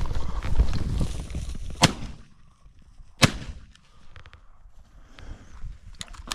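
Two shotgun shots about a second and a half apart, each a sharp crack. Low wind noise buffets the microphone in the first two seconds.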